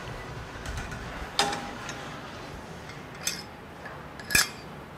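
Metal weight-stack plates of a gym cable machine clinking three times as the stack is handled and the selector pin moved; the last clink is the loudest, over a steady low gym background.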